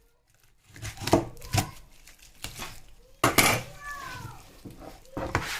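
Knife knocking on a cutting board while chicken leg quarters are cut apart at the joint: about five sharp knocks, the loudest about three seconds in. A short falling pitched sound follows the loudest knock.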